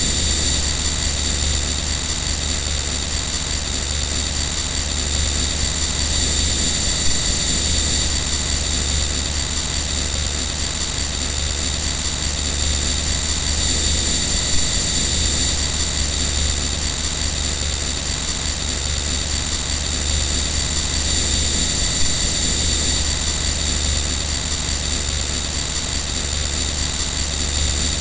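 Power plant machinery running: a steady industrial drone with a deep low hum and several steady high-pitched whines over a constant rushing noise.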